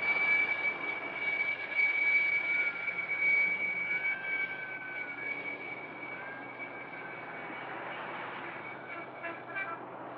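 A bus running on the road: engine and road noise with a steady high whine, louder in the first few seconds and then easing off. It comes through an old, narrow-band film soundtrack.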